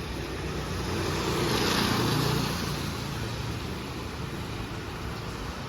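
Motor vehicle engine running; it grows louder about a second in and eases back after about three seconds.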